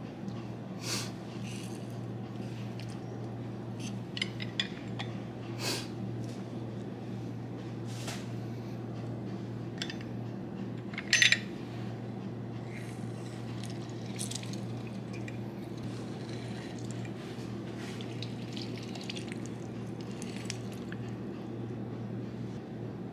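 A utensil working through wet shrimp ceviche in a glass baking dish, with squishy scoops and scattered light clinks against the glass, one sharper clink about eleven seconds in, over a steady low hum.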